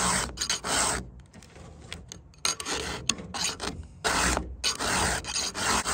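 Round chainsaw file rasping through a chain's cutter teeth in repeated hand strokes, with a short lull about a second in: cleanup strokes sharpening the chain.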